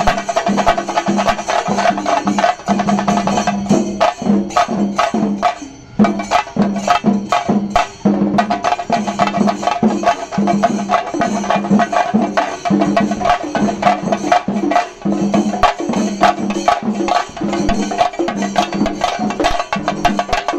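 Shingari melam: a group of chenda drums beaten rapidly with sticks in a dense, fast, driving rhythm. The playing drops back briefly about six and eight seconds in.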